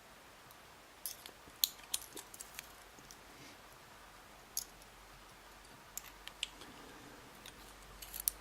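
Faint, scattered small clicks and ticks, about ten at irregular spacing, from a pin-tumbler lock being taken apart by hand after its core has been shimmed out.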